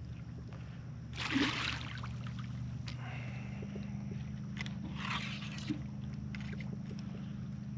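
Water splashing and sloshing twice, about a second in and about five seconds in, over a steady low hum, as a hooked red drum fights at the surface.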